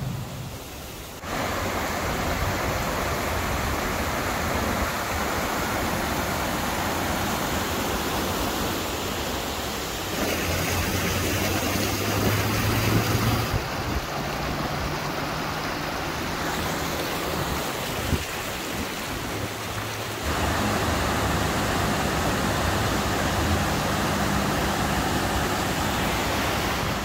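Flash-flood water rushing: a muddy waterfall pouring off a cliff and a brown torrent churning over boulders, a steady rush of water. It shifts abruptly in level about ten, thirteen and twenty seconds in.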